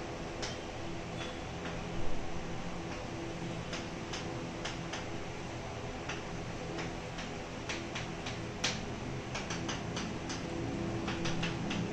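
Chalk writing on a chalkboard: a string of short, sharp taps and clicks at irregular intervals as letters and numbers are written, the loudest about two seconds in, over a steady low hum.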